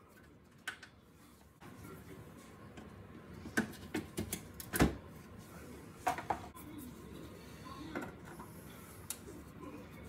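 Plastic arch-liner clips being prised out with a trim clip removal tool: a scattering of sharp plastic clicks and snaps, clustered around the middle. The loudest comes about five seconds in.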